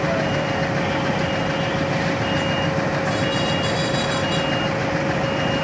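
Diesel locomotive running steadily as it moves slowly along the track: a constant engine drone with a steady whine. Short high-pitched beeps repeat roughly once a second over it, like a vehicle's reversing alarm.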